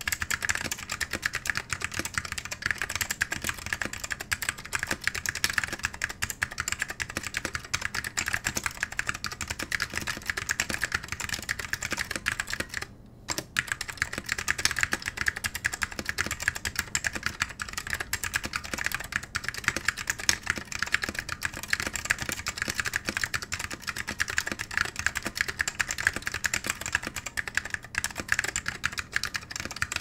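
Typing on a Mekanisk Klippe mechanical keyboard with Salmon Alps switches, PBT dye-sub keycaps and a stainless steel plate: a dense, continuous clatter of key presses, with one short pause about 13 seconds in.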